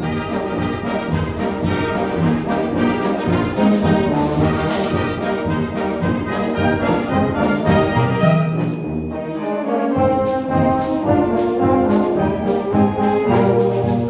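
School concert band playing a piece, with woodwinds (saxophone, flutes, clarinets) and brass (trombones, baritone horns) sounding together in short, accented notes.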